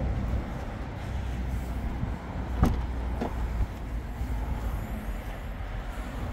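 Nissan Juke tailgate latch releasing: a sharp click about two and a half seconds in and a softer one about half a second later, over a steady low rumble.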